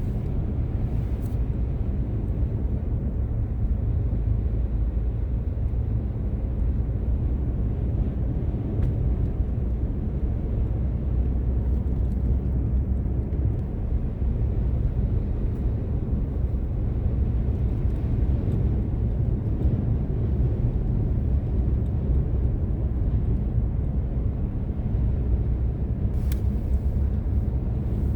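Gale-force wind, a steady low rumble with no letup, heard from inside a truck, with a few faint clicks.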